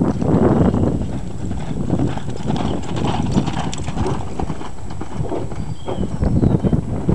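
Hoofbeats of a reining horse loping (cantering) on an arena's sand footing, a steady run of dull thuds with no break.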